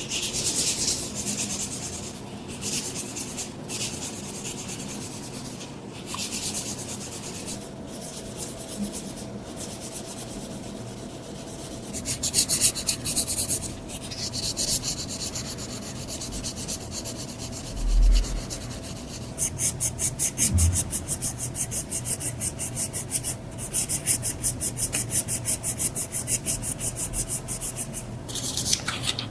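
Back-and-forth hand rubbing on a surface, like sanding, in runs of quick strokes that become steady and rhythmic in the last third at about five strokes a second. A couple of dull low knocks come in the middle.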